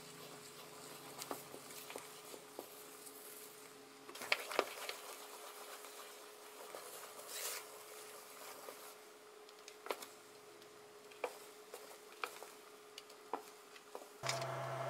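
Wooden chopsticks stirring a thin, foamy beer batter in a metal bowl: soft wet mixing with scattered light clicks and taps against the bowl. A steady hum starts just before the end.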